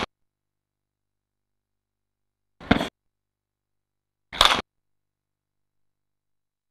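Staff strikes on a striking target: the tail of one hit at the very start, then two sharp smacks about a second and a half apart.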